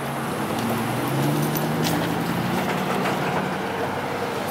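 A motor vehicle's engine running, its hum stepping up in pitch about a second in, with a few light clicks over the road traffic noise.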